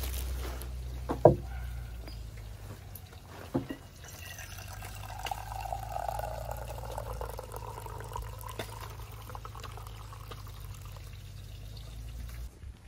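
Liquid running, over a steady low hum, with a sharp knock about a second in and a softer one a couple of seconds later.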